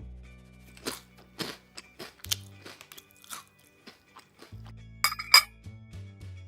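Background music with small plastic toy pieces being handled: a string of irregular light clicks and taps, with two sharper clicks about five seconds in.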